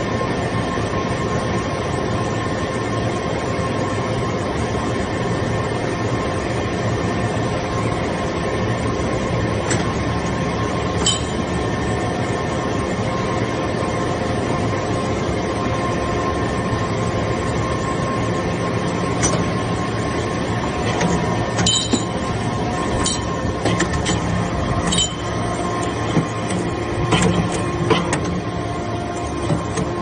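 Hydraulic iron chip baler (briquetting press) running: the steady hum and whine of its hydraulic power unit, with a few sharp metallic clinks in the second half.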